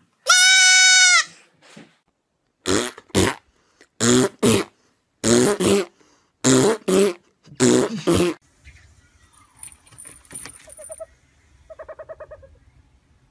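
A baby goat gives one long, loud bleat. It is followed by five pairs of short, loud calls about a second apart, and fainter pulsing sounds near the end.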